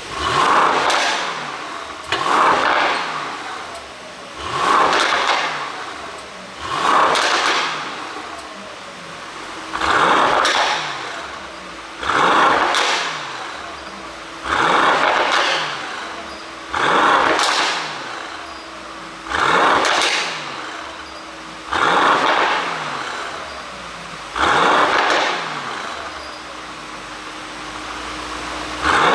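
Mercedes-AMG GT63 S's twin-turbo V8 blipped about a dozen times, each rev rising quickly and falling back to idle roughly every two seconds, through an exhaust with an ECU tune for pops and crackles. The revs pause for a few seconds near the end.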